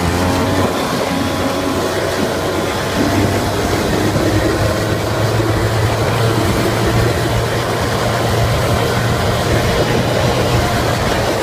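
Quad (ATV) engine running steadily under way, with a constant hum and wind and dirt noise over it.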